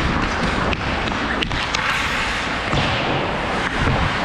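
Ice hockey skates scraping and carving on rink ice during play, heard up close from a camera worn by a skating player, with a few sharp clicks about a second and a half in.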